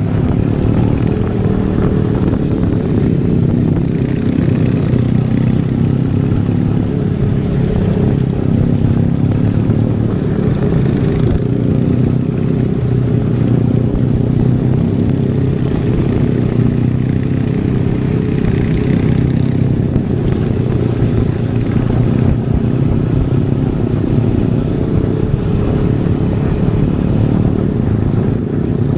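Royal Enfield Hunter 350's 349 cc single-cylinder engine and exhaust running steadily while the motorcycle is ridden, heard from the rider's position. The level holds even, with no sharp revs or pauses.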